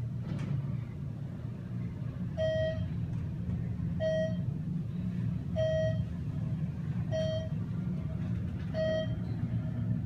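Dover traction scenic elevator car in motion: a steady low rumble, with a short electronic beep from the car sounding five times, about every one and a half seconds.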